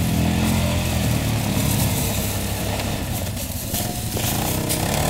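ATV (quad bike) engine running steadily, its pitch wavering a little.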